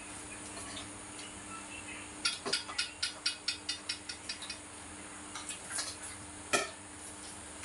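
A quick, even run of about a dozen sharp ticks, about five a second, growing fainter over a couple of seconds. A few scattered clicks follow, then one louder click near the end.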